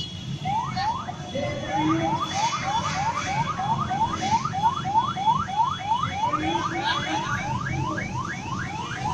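An electronic siren sounding a fast series of rising whoops, about three a second, over the low running of many motorcycle engines.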